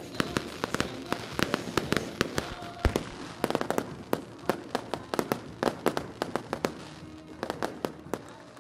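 Fireworks display going off: a rapid, irregular string of sharp bangs and pops from bursting shells, several a second. The bangs thin out in the last second or so.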